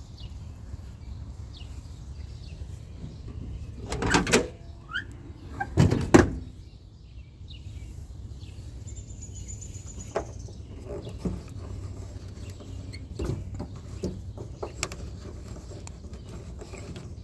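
Front door of a 1957 Chevrolet Bel Air being opened: two loud clunks from the latch and the heavy steel door, about four and six seconds in, with a short squeak between them, followed by lighter clicks and taps on the door hardware.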